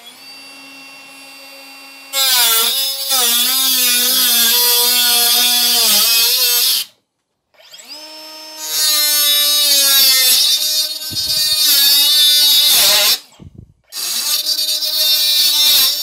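Angle grinder spinning up with a rising whine, then cutting through sheet metal with a loud, harsh hiss, its motor pitch sagging and wavering under load. It is let off and run again twice, giving three cutting passes.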